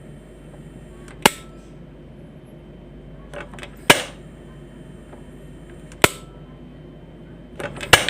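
Quantum gas stove's control knob being turned, its piezo igniter snapping four times about two seconds apart. The second and last snaps come just after a few fainter clicks of the knob.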